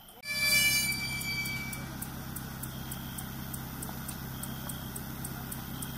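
A sudden loud sound with a brief ringing, then a motor vehicle's engine running steadily as a low hum. Faint regular high chirps, about two or three a second, run behind it.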